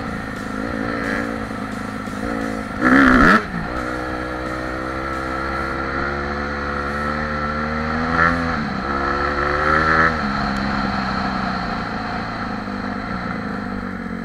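Off-road vehicle engine running under way, its pitch rising and falling with the throttle, with a brief loud burst about three seconds in.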